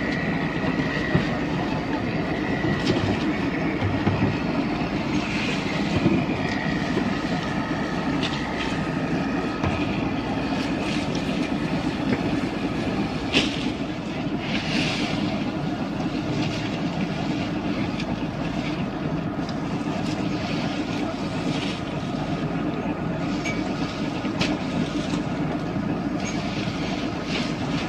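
Purse-seine fishing boat's engine running steadily, with a few short knocks and clicks over the drone.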